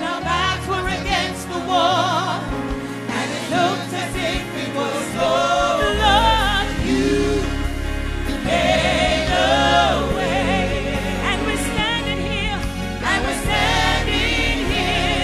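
Live gospel worship music: wavering, gliding sung vocal runs over a band with a steady bass.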